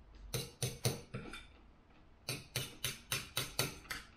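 Knife and fork cutting a breaded pork patty on a plate: short scrapes and clicks of metal on the plate, a handful at first, a pause about a second and a half in, then a quicker run of about four strokes a second as the knife saws back and forth.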